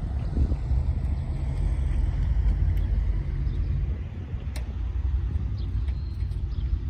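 Car engine idling: a steady low rumble, with a single sharp click about four and a half seconds in.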